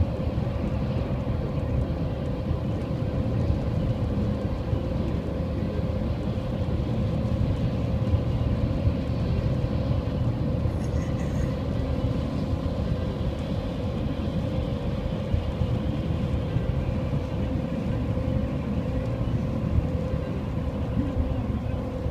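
Steady engine and road noise heard inside a moving car's cabin: a constant low rumble with an even hum.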